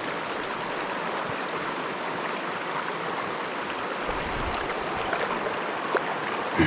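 Mountain stream water rushing steadily over a shallow riffle, with a couple of faint clicks near the end.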